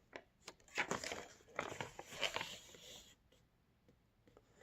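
Toy packaging being opened and handled by hand: a run of rustling, crinkling and small clicks that stops about three seconds in.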